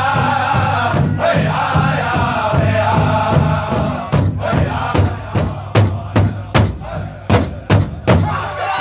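Four powwow drum groups playing together: a chorus of voices chanting over a steady unison beat on large powwow drums. About halfway through, the singing drops back and the drums carry on with loud, accented strikes, about two and a half a second.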